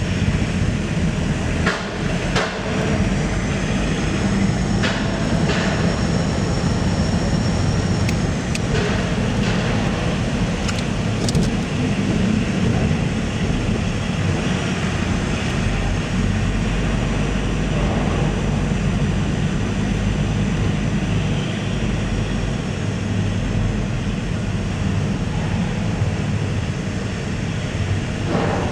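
Steady low rumble of vehicle engines and machinery on a ferry's enclosed car deck, with a few short clunks and a faint high whine that comes and goes.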